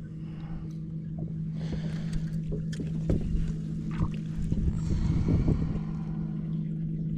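Steady low hum from the boat's motor, with scattered knocks and handling noises in the middle as a hooked fish is played alongside the boat.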